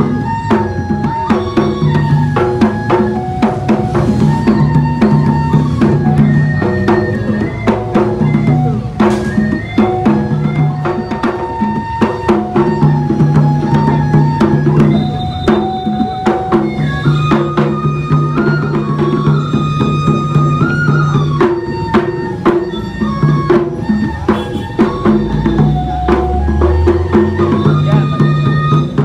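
Traditional Makassar gendang drumming, dense rapid strokes, for the Paduppa dance. Over it runs a melody of long held notes that step up and down. A low note swells near the end.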